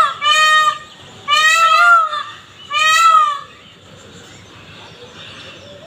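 Male Indian peafowl calling: three loud calls in quick succession over about three seconds, each a short wail that rises and falls in pitch.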